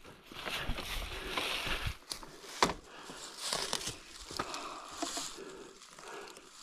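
Dry fallen leaves crunching and rustling underfoot and under a dirt bike's tyres on rocky ground, in uneven bursts with a few sharp clicks and knocks.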